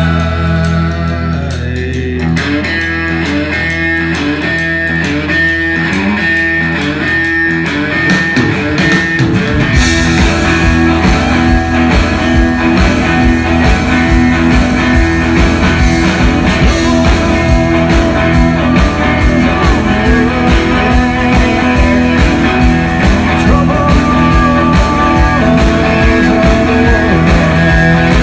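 Live rock band playing a guitar-led passage on two electric guitars, bass guitar and drums. The first stretch is lighter, with a repeating guitar figure. About ten seconds in the full band with drums and cymbals comes in and the sound grows fuller and heavier.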